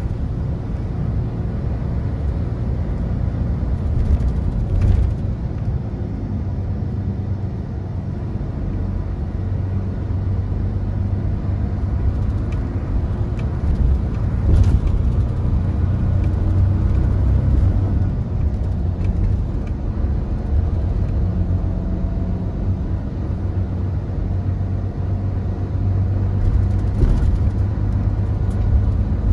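Mercedes-Benz Tourismo coach under way, heard from inside the passenger cabin: a steady low hum of the diesel engine and tyre rumble, with a few brief knocks or rattles about five, fifteen and twenty-seven seconds in.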